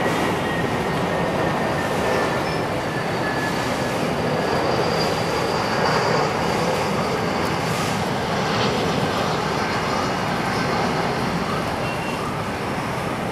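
Jet airliner engines running: a steady rush with a faint high whine that slowly drops in pitch.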